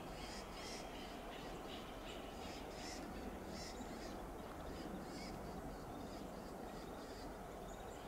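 Western gray squirrel giving its alarm call: a run of short, harsh calls, two or three a second, that die away after about five seconds. A steady background hiss runs beneath them.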